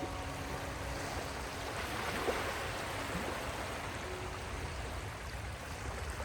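Steady rushing water with an even, unbroken hiss, under a few faint held notes of soft ambient melody.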